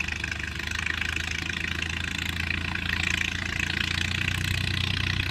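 Antique tractor engine running steadily.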